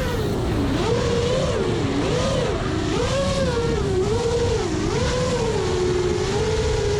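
FPV quadcopter's motors and propellers whining, the pitch rising and falling about once a second with throttle changes, over rushing wind noise.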